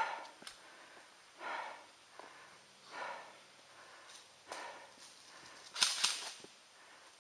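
A person breathing heavily close to the microphone, about one breath every second and a half, with a louder, hissier breath about six seconds in.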